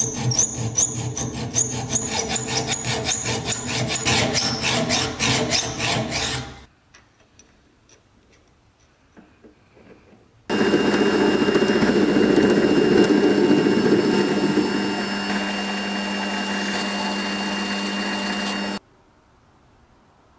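A hand tool rasping or scraping in quick repeated strokes, about three or four a second, for some six seconds. A few small clicks follow, then a power tool runs steadily for about eight seconds and cuts off suddenly.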